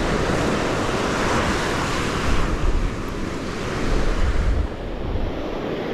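Surf breaking and washing onto the beach, with wind gusting on the microphone twice in the middle.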